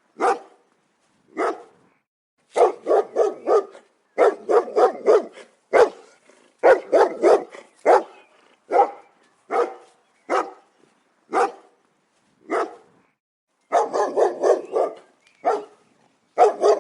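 German Shepherd barking: single barks and quick runs of three to five barks, with short silent gaps between.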